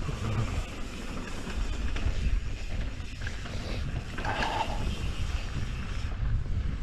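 Wind buffeting an action camera's microphone over the rumble of mountain bike tyres rolling on a dirt trail, with a brief louder hiss about two-thirds of the way through.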